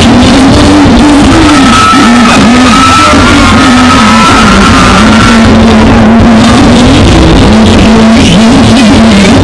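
Very loud music with a continuous wavering melody line, and a higher held note that comes in about a second and a half in and drops out a few seconds later.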